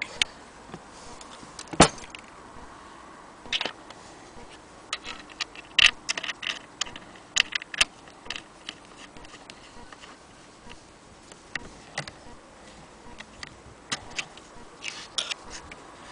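Metal parts of an antique Frister & Rossmann hand-crank sewing machine clicking and clacking irregularly as they are moved by hand, with the sharpest click about two seconds in and quick clusters of clicks in the middle and near the end.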